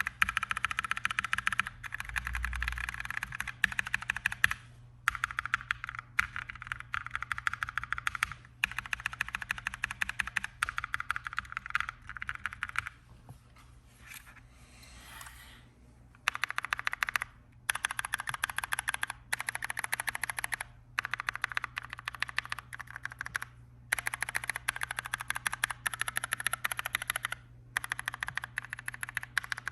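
Rapid key presses on a Glorious GMMK mechanical keyboard fitted with Kailh Silver Speed linear switches, some lubed and some not, coming in fast bursts of one to three seconds with short breaks between them. The typing pauses for a few seconds about halfway through.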